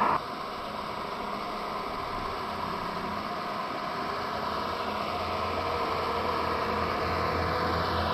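Radio-controlled scale model truck running off-road: a steady, noisy hum from its electric drive and the engine sound of its sound module, slowly getting louder.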